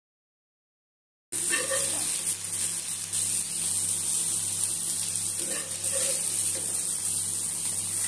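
Oil sizzling steadily on a hot tawa under shallow-fried Indian mackerel (bangda), with a low steady hum beneath. It starts suddenly about a second and a half in, after dead silence.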